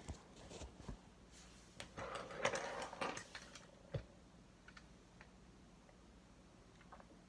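G1 Optimus Prime toy truck handled in the hands: small clicks, taps and rustling of its parts as it is picked up and turned, busiest from about two to three and a half seconds in, with a sharp knock about four seconds in and only faint ticks after.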